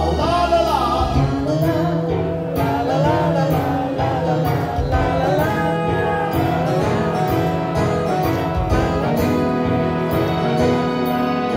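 Live pop performance by a duo: a woman singing the lead melody over keytar and a steady drum beat with a bass line.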